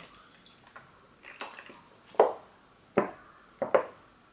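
Water being gulped from a plastic bottle: about four short swallows in the second half, after a quiet start.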